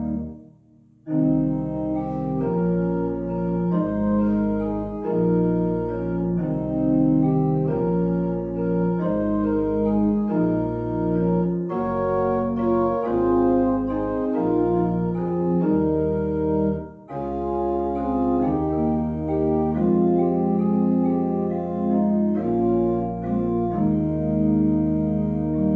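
Church organ playing a postlude in sustained chords that change about once a second, with a brief break just after the start and another about two-thirds of the way through.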